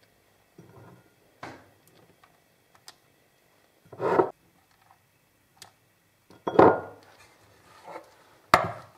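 Kitchen handling sounds as chocolate chunks are picked from a small ceramic bowl and set on muffin batter in a metal muffin tin: scattered faint clicks and rubs, with three louder short knocks or scrapes, about 4, 6.5 and 8.5 seconds in.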